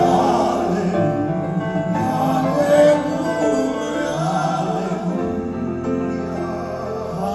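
Male voices singing in a classical, operatic style over a musical backing, performed live.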